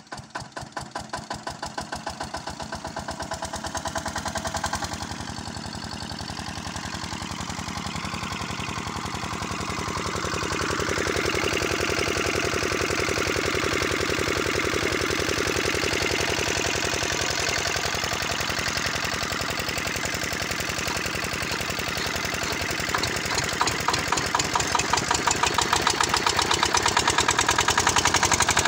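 Small stationary engine powering a soil-test boring rig, starting up and then running steadily with an even knocking beat as it drives the rig's gear head and winch drum. It gets louder about ten seconds in and again near the end, where a regular pulsing beat stands out.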